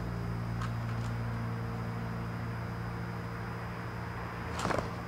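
Hand work under a car's dashboard: a few faint clicks, then a short cluster of sharp knocks near the end, over a steady low hum.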